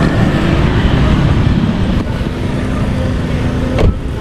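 Street traffic with vehicle engines running, and a single car door shut with a thump a little before the end.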